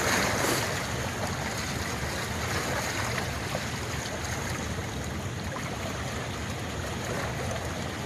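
Steady rush of water pouring over a spillway.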